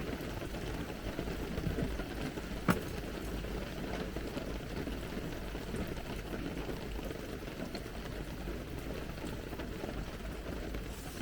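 Heavy rain pattering steadily and densely. One sharp click or knock about two and a half seconds in.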